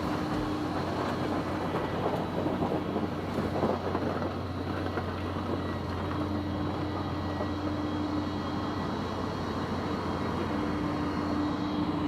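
Huina radio-controlled construction models (mini excavator and wheel loader) working soil: their small electric motors and gearboxes whirring steadily, with a humming tone that starts and stops several times as the motors switch on and off.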